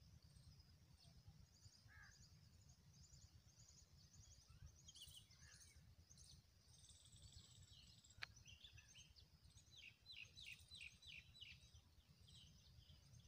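Faint chorus of small birds chirping, with a quick run of about six falling notes near the end, over a steady low rumble. A single sharp click a little past halfway.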